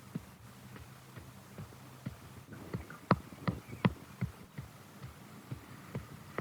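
Footsteps on the ground, irregular, with three heavier thumps close together about three seconds in.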